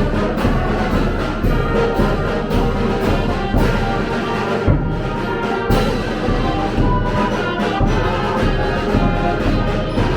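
Orchestral music led by brass, with a steady beat.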